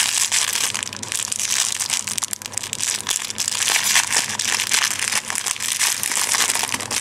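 Clear plastic packaging crinkling and rustling as it is handled close by, with a dense run of small irregular crackles.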